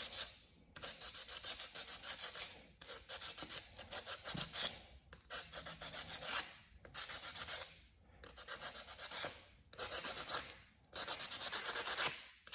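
Sandpaper rubbed by hand over a car door handle to prep it for paint, in bouts of quick back-and-forth strokes lasting a second or two, with short pauses between.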